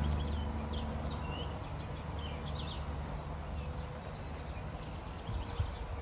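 Small birds chirping in a few quick, high calls during the first three seconds. Underneath, a low motor-like hum fades away over the opening second or two.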